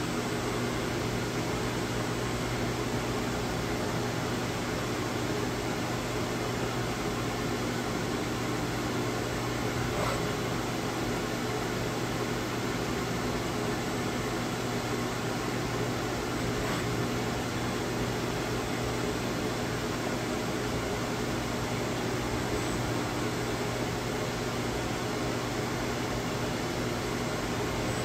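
Steady electrical hum of a Syil X7 CNC mill and its rotary phase converter running during a touch-probe cycle, with no cutting. Two faint clicks come about 10 and 17 seconds in.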